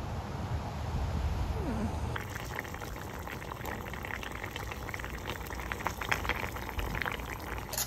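Wind on the microphone for about two seconds, then a pot of Korean soft tofu stew (sundubu jjigae) bubbling at the boil, with many small quick pops.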